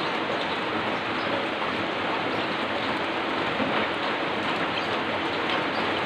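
Heavy rain falling, a steady, dense hiss with no breaks.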